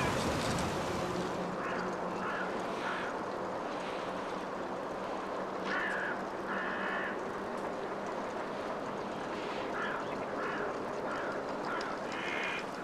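Yellow-legged gulls calling in short, harsh bursts, grouped in small clusters of two or three calls, over a steady background rush and a faint low hum.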